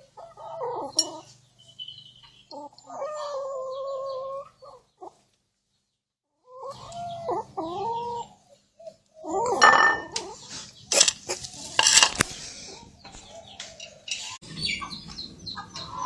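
Kitten growling over its food: a low rumble under drawn-out, wavering yowls, the warning of a cat guarding its plate. A run of sharp knocks and clicks about ten to twelve seconds in is the loudest part.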